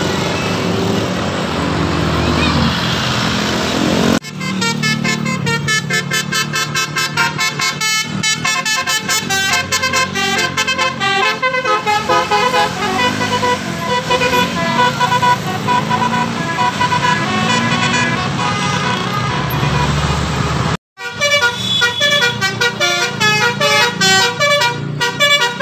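Indonesian bus 'telolet' horn, a multi-tone musical air horn, playing quick rhythmic runs of notes. It starts about four seconds in, after a stretch of bus engine noise, and cuts out for an instant near the end before carrying on.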